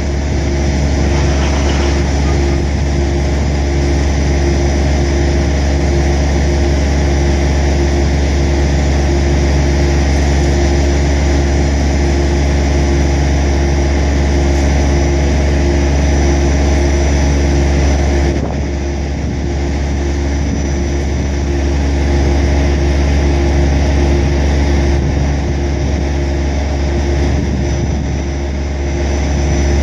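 Crane's engine running steadily under load as it lowers a suspended precast concrete chamber section, a low, constant drone that eases slightly about eighteen seconds in.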